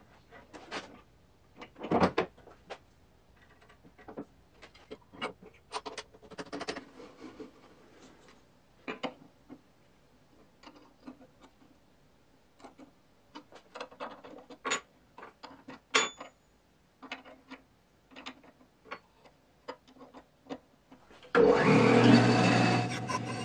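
Metal bandsaw blade-guide parts being handled and fitted: scattered clicks and knocks, some sharp. About 21 seconds in the bandsaw is switched on, starting loud and then settling into a steady run.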